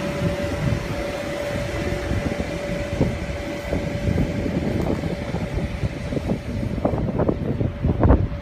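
Steady hum of an inflatable bounce house's electric blower fan, with one steady tone in it that fades out about six seconds in. Near the end, irregular louder noises break in.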